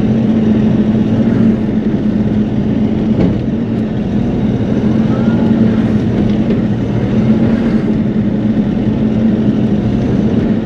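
Bobcat E42 mini excavator's diesel engine and hydraulics running steadily, heard from inside the operator's cab, with an even hum.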